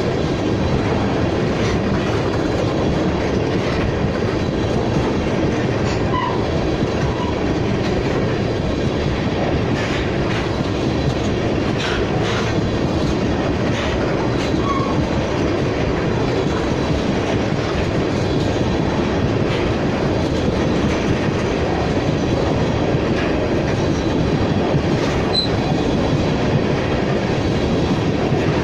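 Empty railroad tank cars rolling past at steady speed: a continuous rumble of steel wheels on rail, with occasional clacks and a few short, faint wheel squeals.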